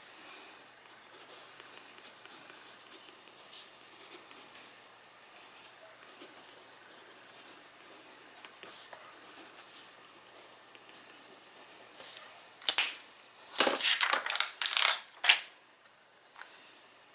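A pen writing by hand on a paper tag, with faint scratching strokes. Near the end come a few louder rustles and scrapes of paper being handled.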